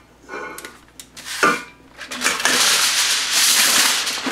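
A few light knocks, then from about two seconds in a loud, continuous crinkling rustle of heavy-duty aluminium foil being pulled off the roll and handled.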